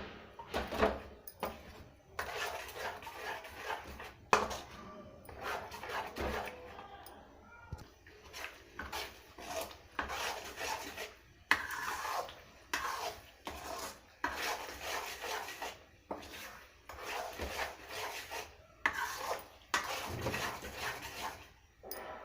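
A spoon scraping and knocking around a cooking pan in repeated strokes, about one a second, as melted jaggery is stirred and cooked down.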